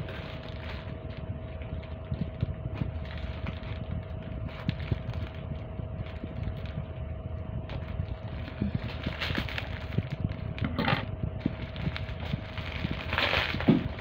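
Orange plastic mailer bag rustling and crinkling as it is handled, with louder crinkles in the second half, over a low rumble and a steady faint hum.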